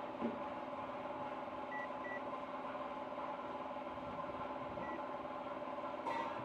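Kaiweets HT206D clamp meter giving four short high beeps as its buttons are pressed, two close together about two seconds in, one near five seconds and one near the end, with a soft click of handling at that last beep. A steady hum runs underneath throughout.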